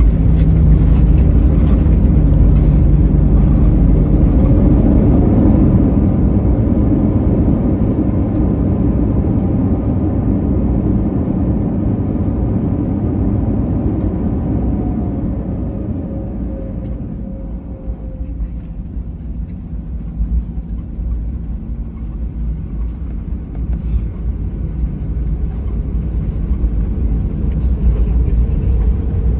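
Cabin noise of an Airbus A321neo rolling out on the runway after landing: a low rumble of the aircraft and its CFM LEAP-1A engines that eases off over the first fifteen seconds or so, with a faint whine sliding down in pitch, then swells again near the end.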